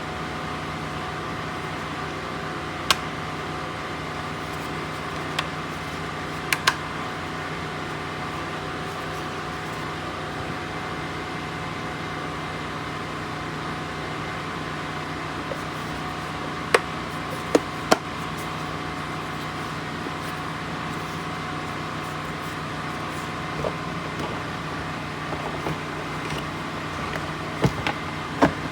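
Scattered sharp clicks of plastic parts being handled and snapped as a Virtue Spire IR2 paintball hopper is taken apart, about eight in all with a quick cluster of three about two-thirds of the way through and more near the end. Under them runs a steady background hum with a few held tones.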